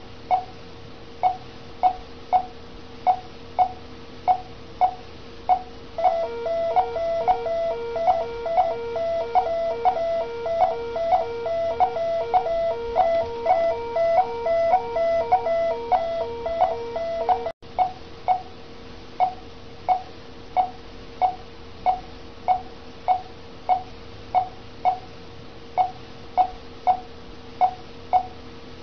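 Bedside patient monitor beeping once per heartbeat, about 1.7 short beeps a second, over a faint steady tone. From about six seconds in, a louder and faster multi-tone alarm beeps alongside it for about eleven seconds, then stops abruptly.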